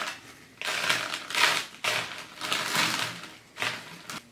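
Sand sprinkled by hand over a glass jar, grains pattering onto the jar and a tray in a run of short rustling pours, each about half a second long.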